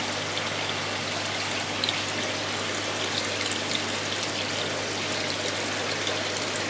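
Aquarium water trickling and splashing steadily, with small scattered droplet ticks, over a steady low hum.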